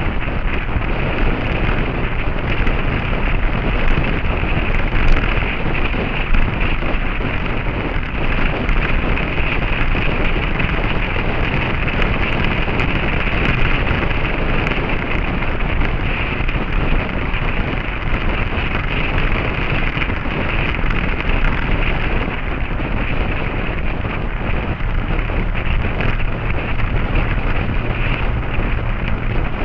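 Steady wind noise buffeting the microphone of a motorcycle riding at road speed, with the engine running underneath.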